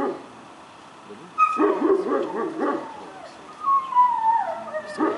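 A dog whining and yelping: a run of short, wavering yips, then a long whine falling in pitch.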